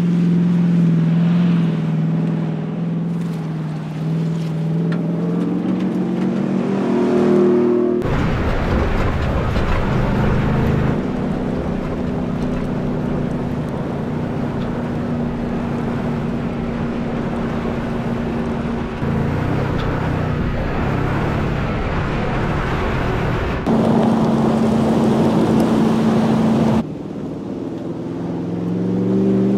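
Ford F-150 Raptor pickup's engine and exhaust under hard driving: revving with rising pitch over the first seconds. After an abrupt change about eight seconds in, a steady engine drone mixed with a loud rushing noise comes in. The pitch rises again near the end.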